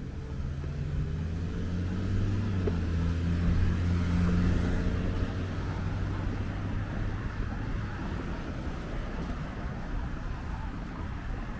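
Road traffic: a motor vehicle's engine passing close by. Its low hum grows to its loudest a few seconds in, then fades into the general traffic noise.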